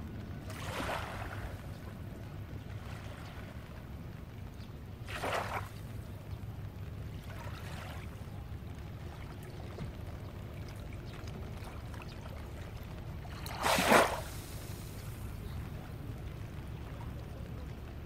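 Small, gentle waves lapping at a sandy, rocky shore in a few short washes, the loudest one about fourteen seconds in, over a steady low rumble.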